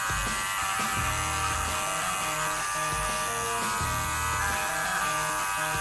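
Simulated electric hair trimmer buzz played through a phone's speaker by a prank app: a steady, high-pitched electric buzz. A deeper hum joins it twice, for about a second each time.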